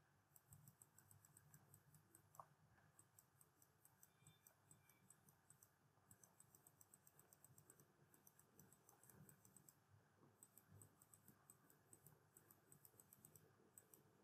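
Faint computer mouse clicking in quick runs, over near silence.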